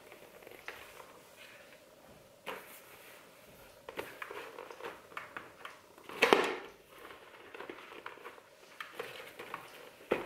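Hands handling a Bell Broozer motorcycle helmet and pulling its padded liner and cheek pads away from the shell: rustling, scraping and a few light clicks of plastic, with a louder brief scrape about six seconds in.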